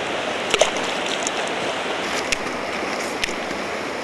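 River water running steadily, with a few short sharp clicks about half a second in and twice more later.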